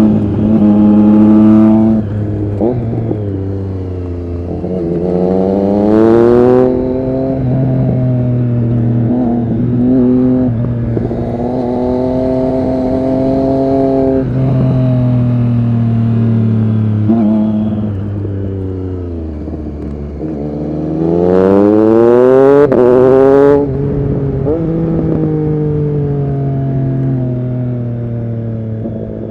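Triumph Street Triple RS 765's inline-three engine through an SC-Project S1 exhaust, under way. Twice it revs hard, the note rising steeply and then cutting off suddenly at a gear change. In between it holds a steady cruising note, and it drops in pitch once as the bike slows before the second run.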